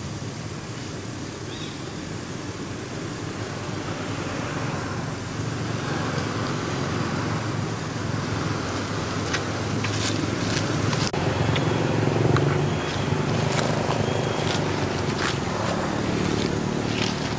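Steady road traffic noise, with a vehicle's hum swelling to its loudest about two-thirds of the way through and then easing off. Short, sharp crackling clicks come in the second half.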